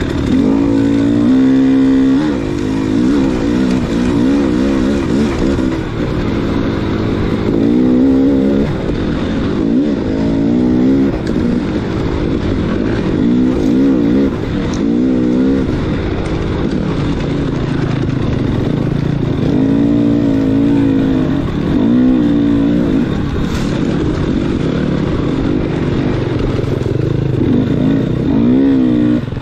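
Dirt bike engine ridden off-road, its pitch rising and falling every second or two as the throttle is opened and closed, over a constant rough rumble.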